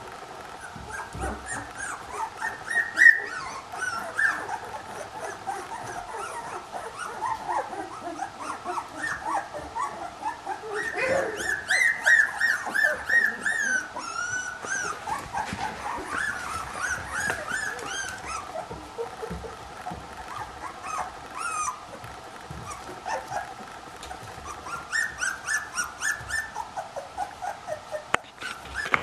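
A litter of about three-week-old Lagotto Romagnolo puppies whimpering and squeaking, many short high rising-and-falling squeaks overlapping one another, busiest about halfway through.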